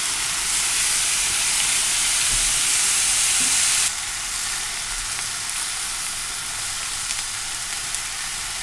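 Thin beef slices sizzling steadily on an oiled cast-iron pan, searing fast. The sizzle drops suddenly to a softer level about four seconds in.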